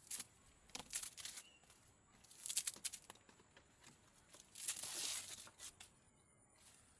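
Several short bursts of tearing and crinkling, the longest and loudest about five seconds in.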